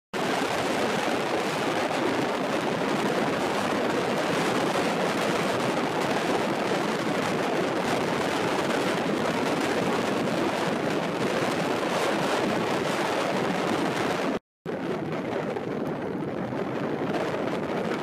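Steady rush of wind over choppy lagoon water, with small waves lapping. It breaks off for an instant about 14 seconds in and resumes a little quieter.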